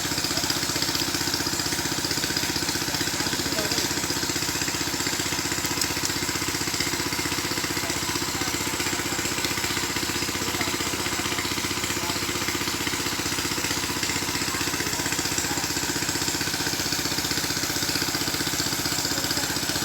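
A small engine running steadily at an even, unchanging speed.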